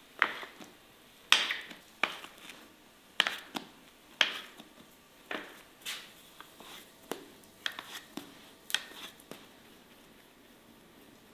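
Metal bench scraper chopping down through bread dough and tapping on a stone countertop, a sharp tap roughly once a second, about a dozen times. The taps stop near the end.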